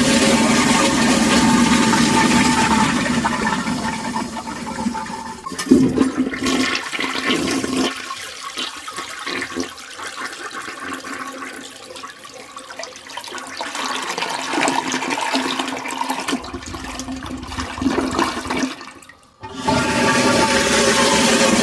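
Toilet flushing: a loud rush of water that tapers off over several seconds into a quieter, uneven trickle of water. After a brief break, another loud flush starts near the end.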